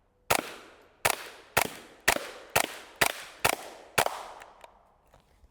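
Suppressed .22LR HK G36 rifle with a JK Armament can firing eight quick single shots, about two a second, each a sharp crack with a short fading tail.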